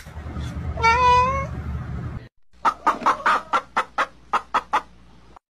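A cat meows once, briefly, over a low background hum. Then, after a cut, chickens cluck about ten times in a quick, even run.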